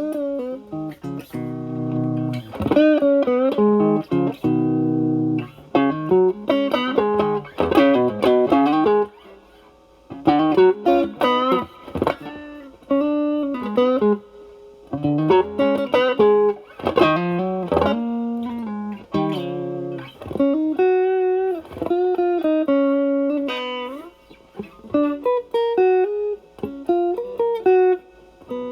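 Stratocaster electric guitar played through an Ibanez Tube Screamer Mini overdrive pedal with its drive at about 10 to 11 o'clock, into a Marshall Valvestate amp's clean channel. It plays phrased single-note lead lines with string bends, with short pauses between phrases.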